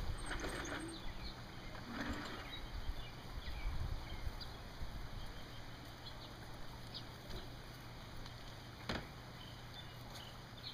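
Quiet outdoor background with faint rustling, a few brief high chirps, and one sharp click about nine seconds in.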